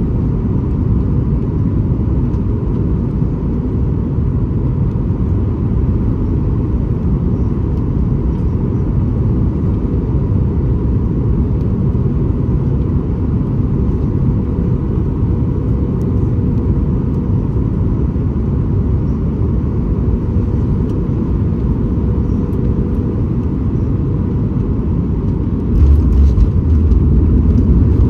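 Boeing 737 MAX 8 cabin noise heard from a window seat: the steady rumble of its CFM LEAP-1B engines and airflow, with a faint steady hum. About 26 seconds in, the rumble suddenly gets louder and deeper.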